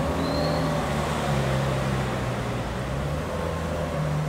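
Ferrari 458 Italia's 4.5-litre V8 with a Kreissieg aftermarket exhaust running at low revs as the car rolls off, a steady low exhaust note with small shifts in pitch.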